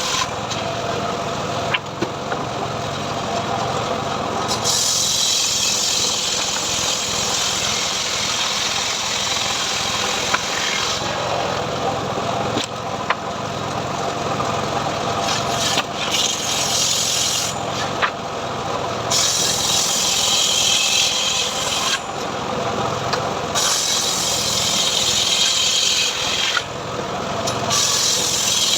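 Engine-driven home-built log saw cutting through teak, the blade's rasping hiss rising each time it bites into the wood and falling back to the engine's running note in between, several times over.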